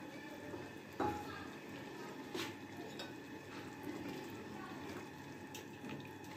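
Metal spoon stirring chickpea-and-chicken gravy in a pot, with soft liquid sloshing. The spoon knocks against the pot about a second in and again a little later.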